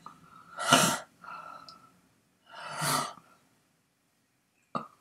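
A person sighing twice, two breathy exhalations about two seconds apart, with a short click near the end.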